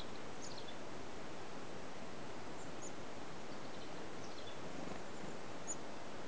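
Chickadees calling softly, a few short high chirps scattered through, over a steady outdoor hiss.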